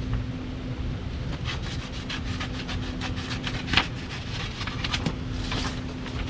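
Paper backing liner being peeled off a vinyl decal banner: irregular rustling and crinkling, with one sharper snap about four seconds in, over a steady low hum.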